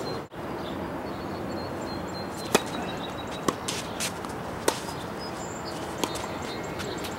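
Tennis ball struck by rackets and bouncing on a hard court during a rally: about five sharp pops spread over some three and a half seconds, the loudest about two and a half seconds in.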